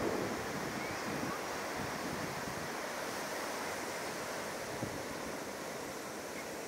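Steady wash of ocean surf breaking on a beach, with some wind on the microphone.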